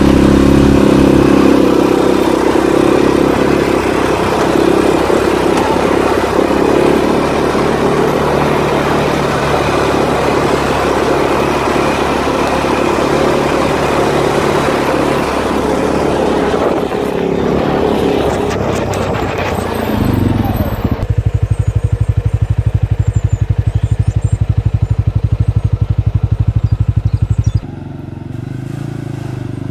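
CFMOTO ATV engine running under way over a rough dirt track, heard from the rider's seat. About 20 seconds in, the sound turns to a steady, even throb. Near the end it cuts to a quieter ATV engine heard approaching.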